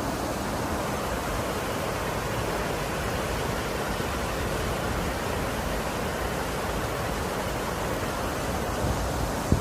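Water rushing steadily over the Derwent reservoir dam, an even rushing noise, with a brief knock just before the end.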